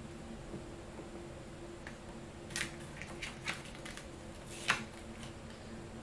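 Black cardstock being handled and pressed into place on a cutting mat: a few short paper rustles and taps in the second half, one sharper than the rest.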